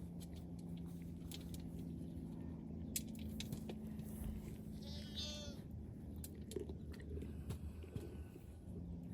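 Goat crunching and chewing dry grain, with a short goat bleat about five seconds in. A steady low hum runs underneath.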